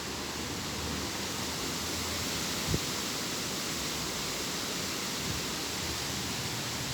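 Steady rushing wind, with one brief low thump a little under three seconds in.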